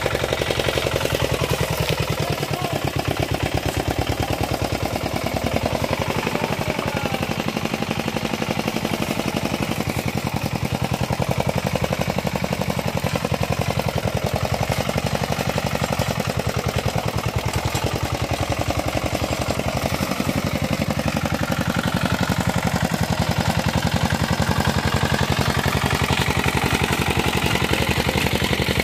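Single-cylinder diesel engine of a two-wheel hand tractor running steadily with a fast, even chugging beat.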